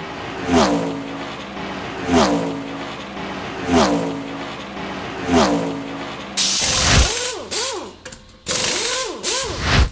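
Logo-intro sound effects: four falling whooshes about a second and a half apart, each trailed by a stepping-down tone. These are followed by a run of loud, hissing bursts with bouncing, boing-like pitch arcs that cut off suddenly.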